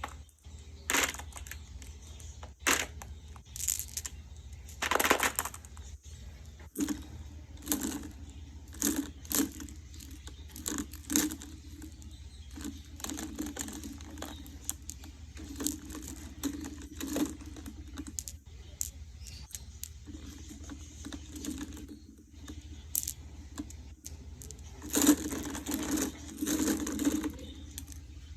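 Glass marbles clicking and clattering against one another as they are sorted by hand, in irregular sharp clicks. Near the end comes a denser rattle of many marbles rolling together.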